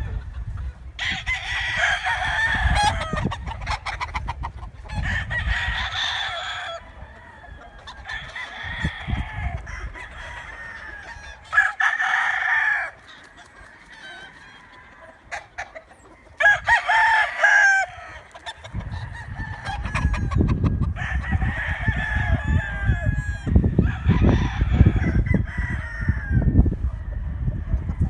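Roosters crowing over and over, about seven crows of a second or two each, with a low rumble underneath most of them.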